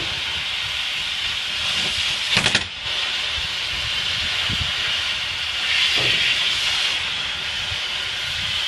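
Cutting torch hissing steadily as its flame cuts through a steel anchor chain link, with a short loud burst about two and a half seconds in.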